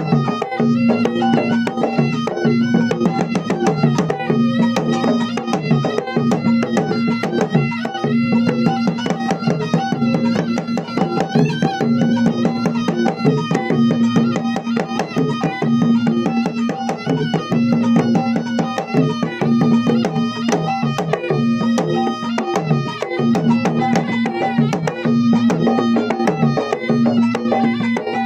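Traditional Makassar gendang drums playing a fast, dense, continuous rhythm under a melody that bends in pitch, with a steady tone held beneath.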